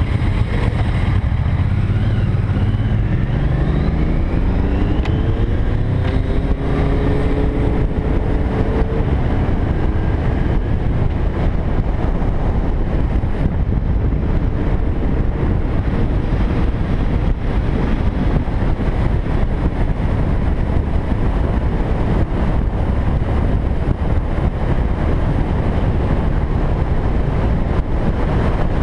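Motorcycle engine pulling away and accelerating, its pitch rising over the first several seconds, then running steadily at cruising speed under a dense rush of wind and road noise.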